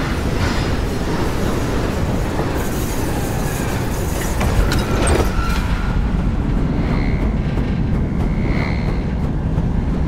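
Roller coaster train running along its track: a steady loud rumble of wheels on rails. About six seconds in, the high rushing hiss drops away, and a short high squeal repeats about every second and a half.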